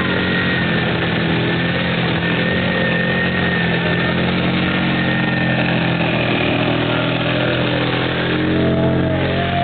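Quad (ATV) engines running at low revs as the machines crawl through deep mud. The engine note rises and grows a little louder near the end as one quad passes close by.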